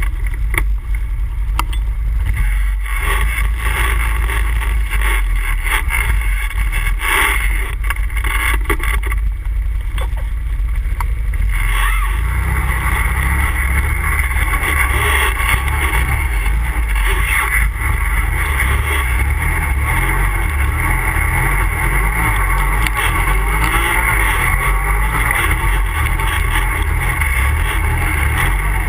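ATV engine running steadily under way, with a strong low rumble; about twelve seconds in the engine note grows louder and fuller as it comes under more throttle.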